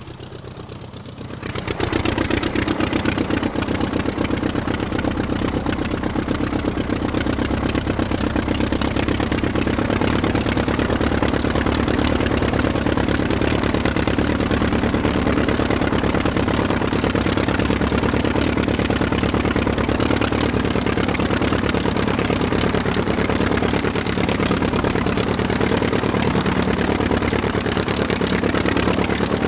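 Aircraft engine running steadily, with a fast, even pulsing. The sound is lower at the very start and builds back to full level within about two seconds.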